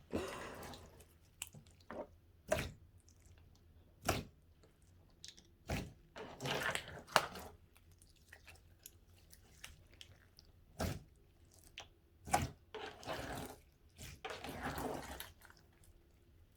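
Clear bucket slime with beads mixed in, squeezed and stretched by hand: scattered sharp wet pops and clicks, with a few longer squishing stretches of about a second each.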